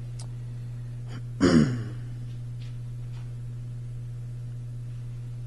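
A steady low electrical hum, with one short voiced exhale falling in pitch, like a sigh, about one and a half seconds in, and a few faint clicks.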